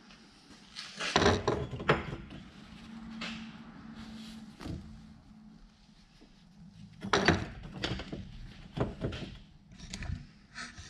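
Knocks and clunks of a disassembled A/C compressor's metal housing and parts being handled and set down on a workbench, loudest about a second in and again around seven seconds.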